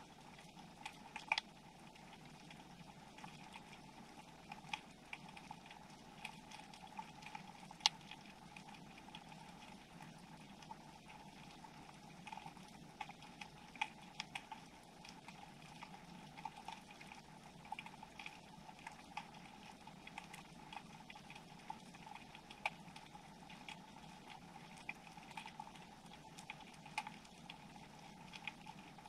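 Underwater ambience picked up by a camera on the seabed: a steady low hum with scattered sharp clicks and crackles at irregular intervals, one louder click about eight seconds in.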